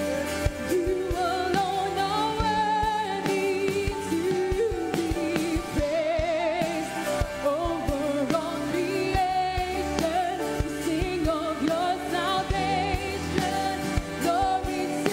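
Live worship band playing a contemporary worship song: a woman's lead vocal, with a wavering vibrato on held notes, over drums, electric bass and keyboard.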